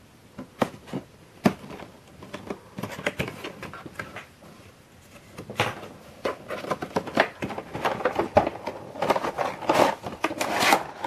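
A figure's cardboard box with a clear plastic window, and the plastic blister tray inside it, being handled and opened: a few scattered taps and scrapes, then from about halfway denser crinkling, rustling and clattering of plastic and cardboard, loudest near the end.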